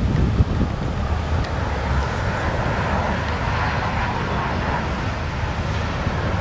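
Jet noise from a T-33 Shooting Star's single Allison J33 turbojet passing overhead: a steady rushing sound that builds from about two seconds in, over a low rumble of wind on the microphone.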